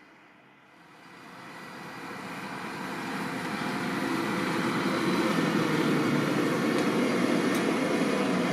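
Fendt 724 Vario tractor running under load while pulling a five-furrow Lemken plough, growing louder over the first four seconds or so, then holding steady.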